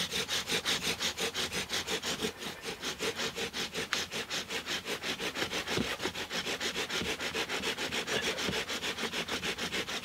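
Bow drill fire-starting: a wooden spindle spun back and forth by a corded bow, grinding in the notch of a wooden fireboard in a fast, even rhythm of about five strokes a second. The board is smoking, the sign that the friction is building an ember.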